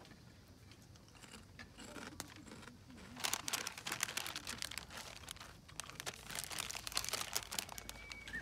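Parchment paper crinkling as hands wrap it around a hamburger, a quick run of crisp crackles that grows louder and busier about three seconds in.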